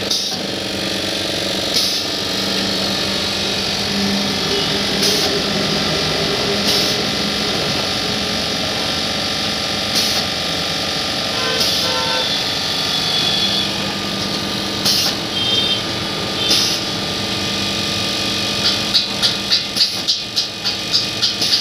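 Automatic vertical form-fill-seal pouch-packing machine running steadily, a mechanical hum and hiss broken by a sharp clack every couple of seconds as it seals and cuts pouches. Near the end a quicker regular beat of pulses, about two or three a second, joins in.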